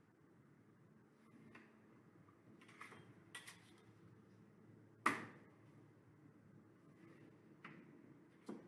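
Pencil drawing lines along a ruler on paper: a faint scratching with a few sharp clicks of the ruler and pencil being set down and moved, the loudest about five seconds in.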